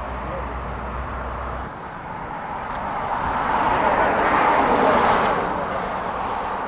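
A car passing on the road, its tyre and engine noise swelling to a peak about four to five seconds in and then fading, over steady outdoor traffic noise.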